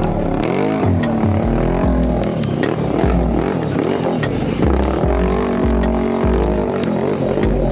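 ATV engine revving, its pitch rising and falling again and again, over music with a deep, repeating bass beat.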